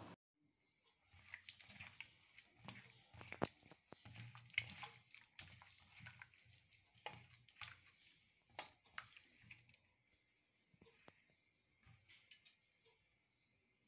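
Faint wet squelching and irregular clicks of a hand mixing fish pieces in a thick marinade of mustard paste and curd in a steel bowl, thinning out near the end.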